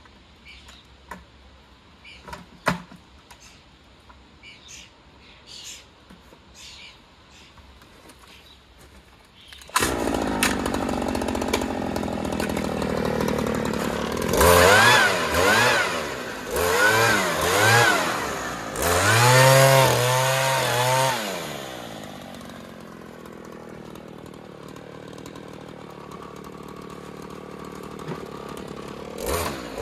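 Stihl handheld petrol leaf blower engine starting abruptly about ten seconds in, after some faint clicks and knocks. It is revved up and down several times, settles to a lower steady run, and revs up again near the end.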